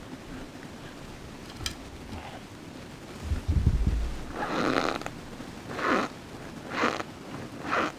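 Clover Valley cornstarch being chewed close to the microphone, with about four squeaky, crunchy chews in the second half, each roughly a second apart. A low thud comes a little past three seconds in.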